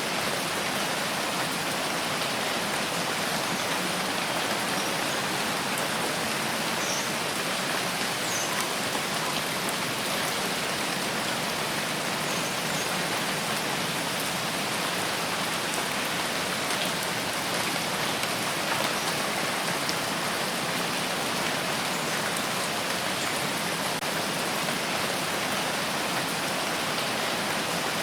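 Steady rain falling, an even hiss at a constant level with a few faint drop ticks.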